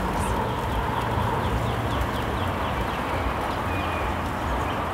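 Steady outdoor background noise with a low rumble, and a run of faint short high chirps in the first half.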